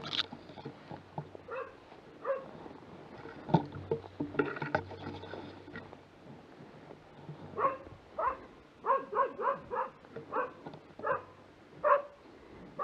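Mixed-breed tracking dog barking at a wounded wild boar it is holding at bay: a few single barks at first, then a quick run of short barks from about halfway on. Dry reeds and brush rustle against the hunter as he pushes through them.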